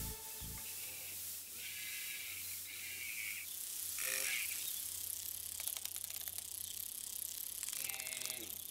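Clockwork wind-up key being turned: a run of quick ratcheting clicks in the second half. A few short high chirps come before it.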